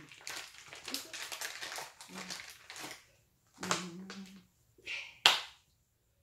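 Hands patting and tapping on skin and sheet face masks in quick, irregular taps. A short voice sound comes about four seconds in, then one sharp smack of the hands near the end, the loudest sound.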